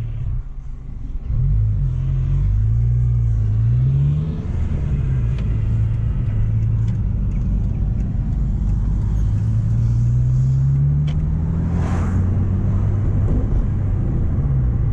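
Mk1 Renault Clio engine heard from inside the cabin while driving, pulling up in pitch, dropping at a gear change about four seconds in, then pulling up again and dropping once more near the end. A brief hiss about twelve seconds in.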